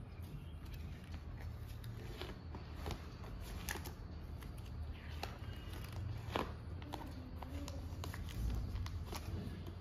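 Pages of a ring binder with plastic sleeves being turned by hand: rustling with several sharp clicks, over a low steady hum.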